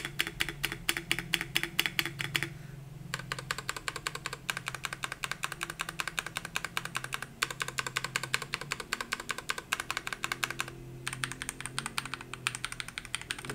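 Fast typing on a Langtu L84 mechanical keyboard fitted with Akko Snow Blue Grey linear switches: a quick stream of key strokes with a few short pauses.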